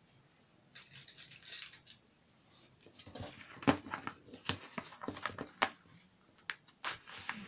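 Brown paper pattern and lining fabric rustling and crinkling under the hands while pins are pushed through, with light clicks; the handling gets busier about three seconds in.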